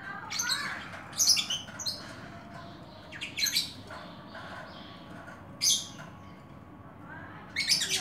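Oriental magpie-robin (kacer) giving about six short, scratchy calls, spread unevenly, with the loudest about a second in, near the middle and just before the end.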